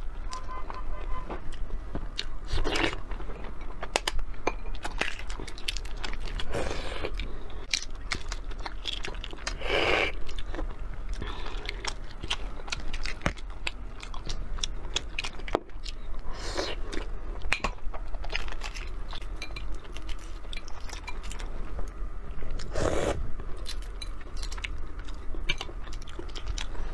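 Close-up eggshell crackling and clicking as boiled 13-day embryonated eggs are peeled by hand, mixed with chewing and mouth sounds, a louder burst every few seconds.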